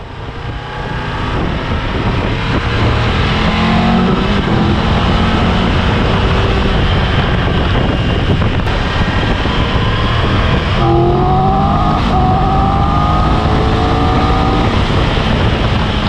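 Wind rush over a helmet microphone together with the Triumph Tiger 1200 Rally Pro's three-cylinder engine accelerating hard to overtake, its note climbing. About eleven seconds in the sound changes suddenly, and the engine note climbs again.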